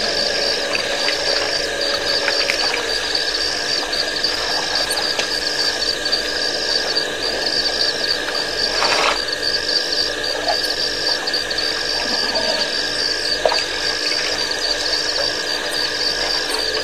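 Night insects chirping in a steady rhythm, a high pulse about once a second, over a constant hiss and hum. A short burst of noise comes about nine seconds in.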